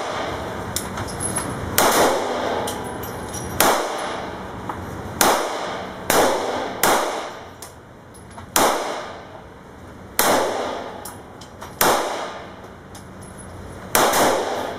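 Beretta M9 9mm pistol fired in slow single shots, about nine in all, one every one to two seconds, each crack followed by a short echo.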